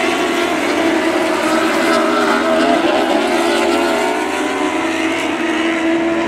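A field of winged Lightning sprint cars running together around a dirt oval, several engines heard at once at a fairly even pitch.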